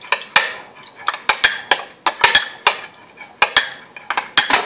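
A metal spoon clinking quickly and irregularly against the side of a glass bowl while stirring borax solution for slime, several clinks a second.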